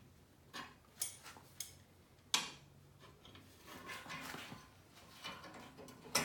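Pliers and a steel tension spring clinking against metal while the spring on the belt idler of an Exmark Metro mower is hooked back on: a few sharp metallic clicks, the loudest about two seconds in, with light handling noise after.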